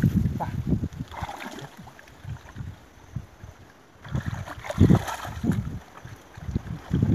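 Shallow muddy water sloshing and splashing as a wading man's hands and legs move through it, in a few irregular bursts with a quieter lull in the middle.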